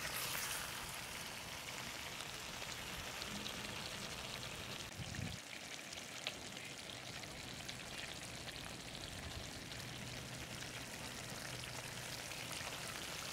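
Thick mutton curry bubbling and sizzling in an open pot over a fire, a steady fine crackling hiss.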